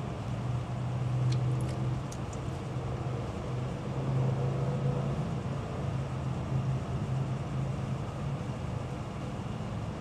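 A steady low mechanical hum that swells and eases, with a few light clicks from wire cutters working on the harness wires about one to two seconds in.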